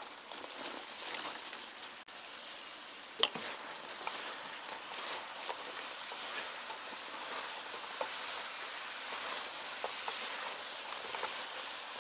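Hot syrupy chili-paste sauce sizzling in a pan while fried, battered bamboo-shoot pieces are stirred and tossed through it with a wooden spatula, with scattered small clicks and a sharper knock about three seconds in.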